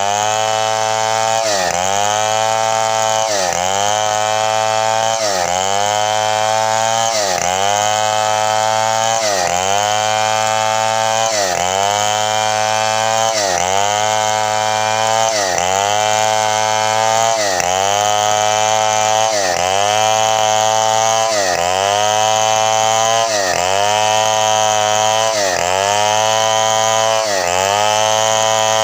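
Chainsaw run at full throttle ripping bayur wood lengthwise. The engine pitch dips under load and climbs back about every two seconds, over and over.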